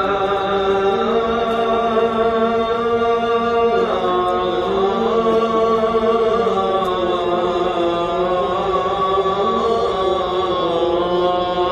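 A single voice chanting in long held notes, its pitch sliding slowly from one note to the next.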